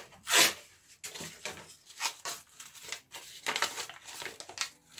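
Soft corrugated cardboard being crumpled and bent by hand into folds, in a series of irregular short rustles, the loudest about half a second in.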